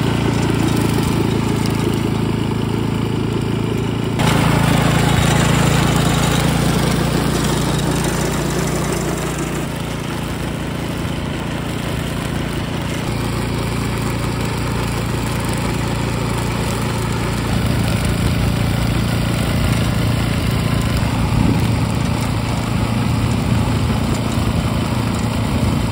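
Power tiller's small single-cylinder engine running steadily under load, driving a front-mounted garlic-stalk cutter through tough garlic stalks. The sound changes abruptly about four seconds in and again about ten seconds in.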